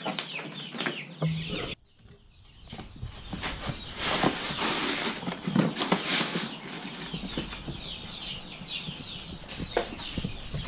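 Baby chicks peeping in a brooder, many short falling chirps overlapping. About four seconds in there is a burst of rustling and rattling as dry feed is scooped out of a paper feed bag.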